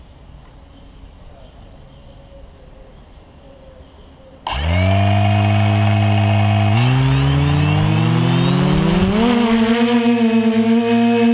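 Quadcopter's motors and propellers spinning up suddenly about four and a half seconds in, after faint background, and running at a steady idle whine. About two seconds later the pitch rises as the throttle comes up for takeoff, then settles into a steady higher hover whine.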